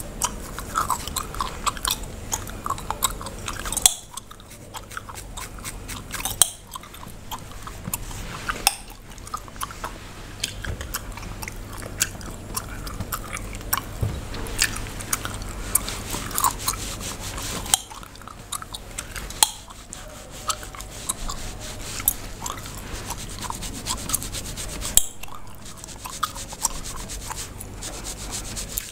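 Bubblegum chewed and cracked close to the microphone: a near-continuous run of sharp snaps and pops, broken by a few short pauses.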